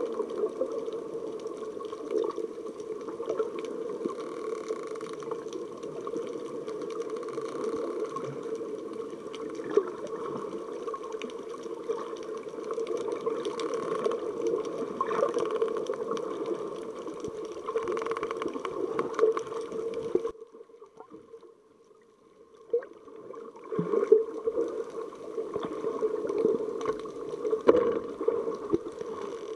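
Underwater water noise picked up by a snorkeler's action camera: a steady, muffled drone with irregular bubbling and small knocks. It falls almost quiet for about two seconds about two-thirds of the way through, then comes back with a few sharp knocks.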